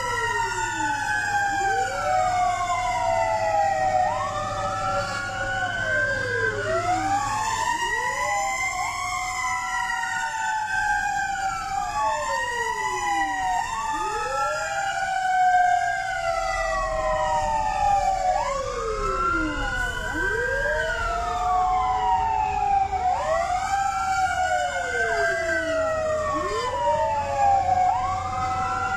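Several fire truck sirens wailing at once, out of step with one another. Each one sweeps up and down in pitch every two to three seconds, over a low rumble.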